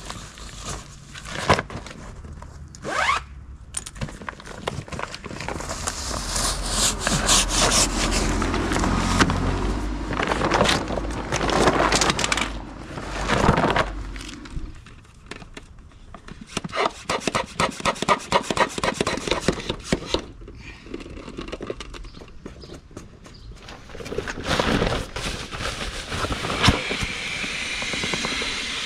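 Packraft's fabric rubbing and scraping as it is unpacked and spread out, in irregular strokes with a stretch of rapid rasping partway through.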